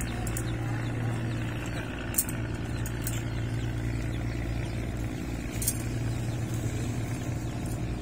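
A steady, low engine hum with a few brief faint clicks.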